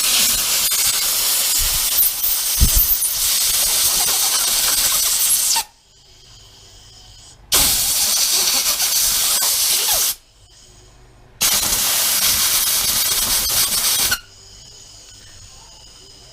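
Compressed air blowing out the jets of a pressure washer's carburettor, cleaning out clogged jets and dried fuel. It comes as three loud hissing blasts: a long one of about five seconds, then two shorter ones of two to three seconds each with short pauses between.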